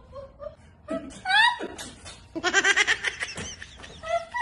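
A woman laughing: a rising high-pitched squeal about a second in, then a fast run of short, high laughs.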